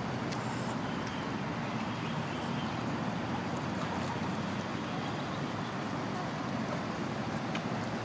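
Steady, even outdoor background noise of an urban canal, a low continuous rumble with no calls or distinct events standing out.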